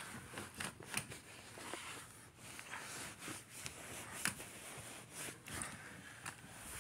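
Bedding being handled: a comforter and sheets rustling as they are pulled and tucked, with scattered soft knocks and clicks.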